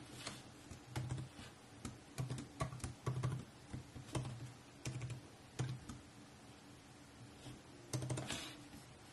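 Typing on a 2020 MacBook Pro M1's built-in keyboard: irregular runs of light key clicks, a pause of about two seconds, then a short flurry near the end.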